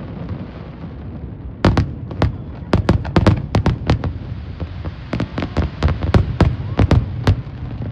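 Fireworks going off: a fast, irregular string of sharp bangs and crackles starting about a second and a half in, over a low steady rumble.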